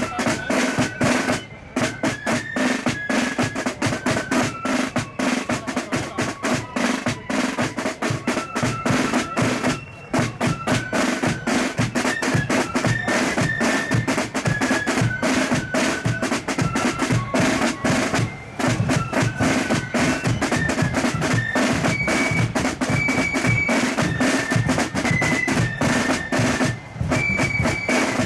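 Marching flute band playing a tune: snare drums rattling a busy rhythm with a bass drum beat under a high stepping melody, with a few brief breaks between phrases.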